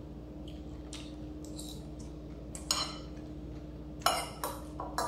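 Metal fork clinking and scraping against a ceramic salad bowl: a few scattered clinks, the loudest and busiest about four seconds in, over a steady faint hum.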